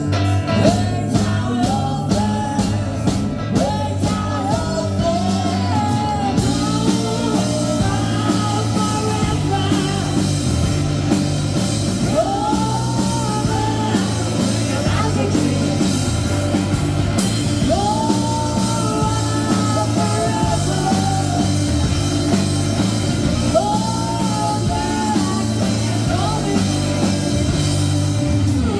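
Rock band playing with a singer, held sung lines over a steady bass and full band backing; the band gets fuller about six seconds in.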